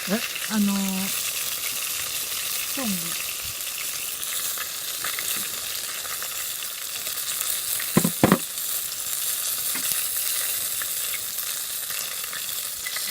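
Food sizzling steadily as it fries on a hot pan, already starting to scorch, with two sharp clicks about eight seconds in.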